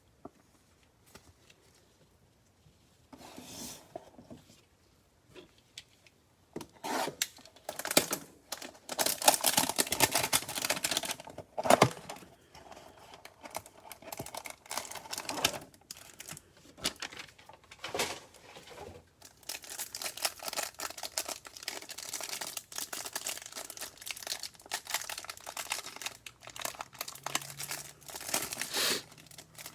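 Trading card hanger box packaging being torn open and crinkled, in irregular bursts of tearing and rustling. It starts a few seconds in, is heaviest for a few seconds in the middle, and runs on almost without a break through the second half.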